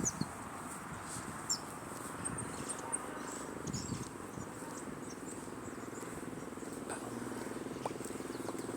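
Steady high insect trilling with a few short chirps over it. A low engine hum comes in about six and a half seconds in and grows louder.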